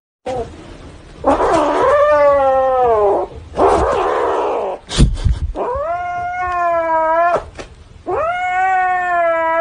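Angry cat yowling: three long, drawn-out wails that waver in pitch, with hissing in between. There is a sharp knock about five seconds in.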